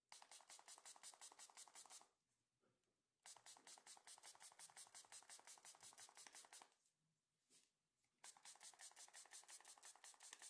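Faint, rapidly pulsing hiss of a jet of chlorhexidine rinse sprayed into a dog's mouth, in three bursts separated by short pauses.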